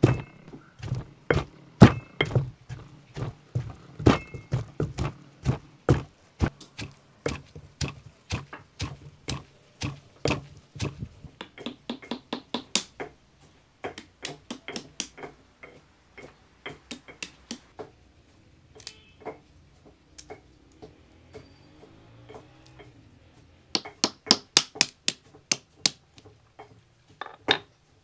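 Stone pestle pounding herbs in a heavy stone mortar, with regular dull thuds about two or three a second. Later come sparser, quieter knocks, then a quick run of loud, sharp knocks near the end: walnuts being cracked with a stone on a rock.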